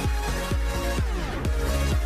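Electronic dance music with a steady kick drum about twice a second, and a falling sweep about a second in.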